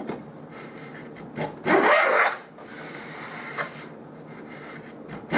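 Handmade wooden plane scraping along the edge of a board in a few hand-pushed strokes, taking shavings; the longest and loudest stroke comes about two seconds in.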